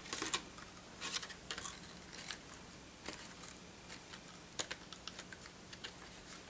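Card stock being handled: light, irregular clicks and rustles as stiff paper is pressed and shifted between the fingers.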